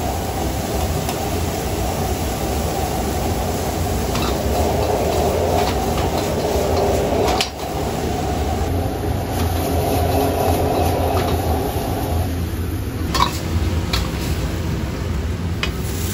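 Steady roar of a high-flame wok burner under a wok of sizzling stir-fry, with a metal ladle clinking against the wok a few times as the food is tossed. The roar drops in part about twelve seconds in.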